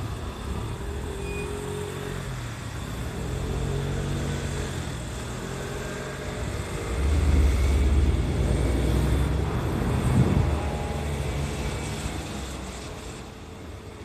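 Keihan electric train running slowly over the pointwork: a low rumble with faint rising and falling tones, loudest about halfway through and then fading, mixed with road traffic.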